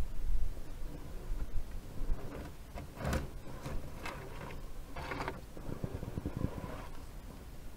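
Axial SCX10.2 electric RC rock crawler inching up rock: a faint motor and gear whine, with its tyres and chassis scraping and knocking on the stone. There are several sharper scrapes in the middle.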